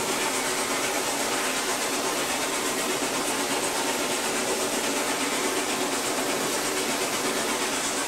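Norfolk & Western Class J 611, a 4-8-4 steam locomotive, running at speed, heard from inside its cab. It makes a steady, loud roar of exhaust, running gear and steam hiss.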